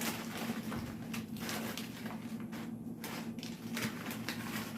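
Crisp, irregular rustling and crackling of tortilla chips being handled and laid on top of a tray of nachos, over a steady low hum.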